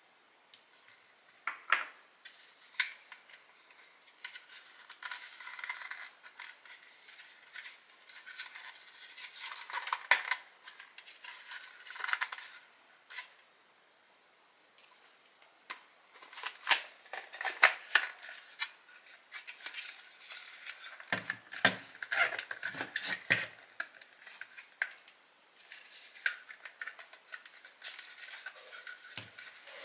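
Hand work on a workbench: tools and small parts handled, giving irregular sharp clicks and taps with stretches of scraping and rubbing, and a few dull knocks about two-thirds of the way through.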